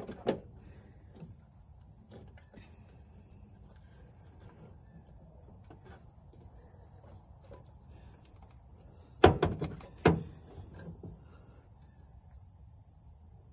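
A steady high chorus of insects, with scattered small clicks of the aluminium overflow tank and its rubber hoses being handled in the engine bay. Two sharp knocks come about nine seconds in and a second later.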